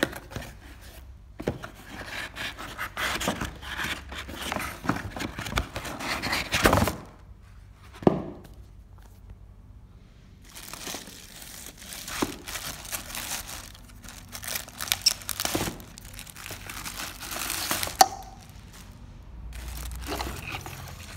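Plastic bags and cardboard packaging crinkling and rustling in irregular bursts as a blender is unpacked from its box, with two sharp knocks.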